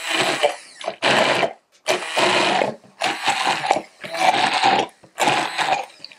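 Bosch hand blender puréeing soft fruit in its tall beaker, run in short pulses of about half a second, roughly once a second.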